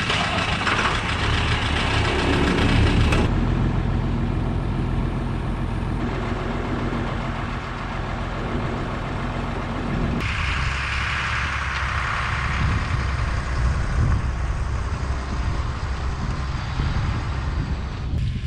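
Dump truck engine idling steadily after being warmed by a block heater and salamander heater, with a steady rushing noise over it for the first few seconds and again partway through.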